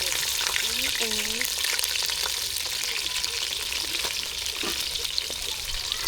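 Food frying in a pot: a steady, dense sizzle full of small crackles, cut off abruptly at the very end.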